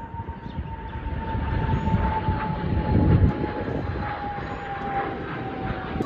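A jet aircraft passing overhead: a low rumble builds to its loudest about three seconds in and then eases off, over a high engine whine that falls slowly in pitch.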